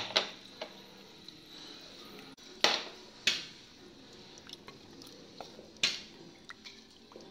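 Wooden spatula stirring watery broth in an earthenware clay pot, knocking sharply against the pot's side about five times, with soft stirring sounds between.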